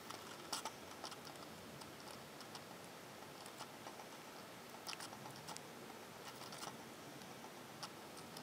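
Faint steady background hiss with scattered light ticks and clicks, a few of them sharper, about half a second in and again around the middle.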